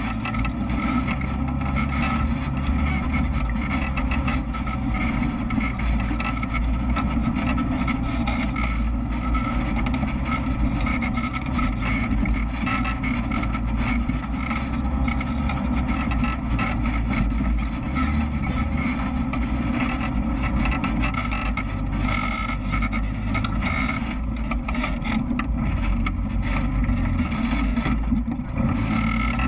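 Side-by-side UTV's engine running at a fairly steady speed while it drives a dirt trail, with a strong low rumble.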